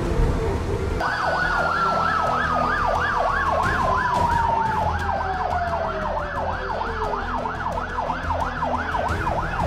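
Emergency vehicle siren in a fast yelp, rising and falling about three times a second, starting about a second in. A second siren tone slides slowly down in pitch over several seconds, over a low street rumble.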